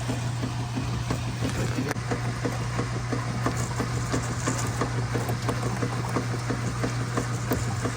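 Small irregular clicks and knocks of hose fittings being handled and fitted together, over a steady low hum.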